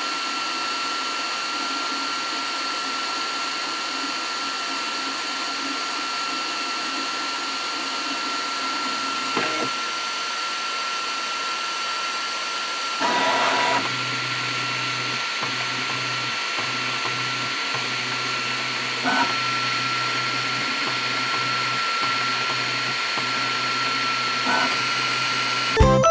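Flashforge Adventurer 5M 3D printer's cooling fans running steadily, a whooshing noise with a steady high whine. A few brief short sounds come from the printer, and from about halfway a low hum joins in.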